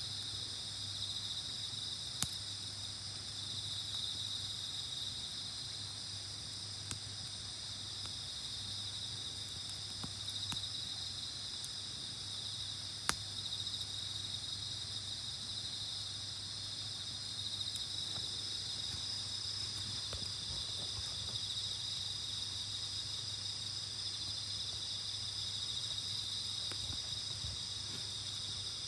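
A steady chorus of insects, crickets by their sound, chirring without a break. Two sharp clicks stand out, one about two seconds in and one about halfway through.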